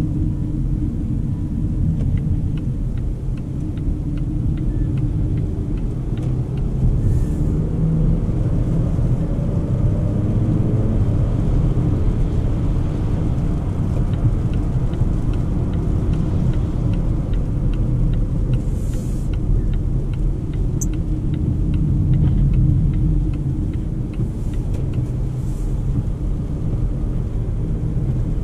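Cabin sound of a Volvo XC40 B3 driving on a wet road: a steady low rumble of engine and tyres, with the engine note rising for a few seconds as the car picks up speed. Faint regular ticking and a few soft swishes sit above it.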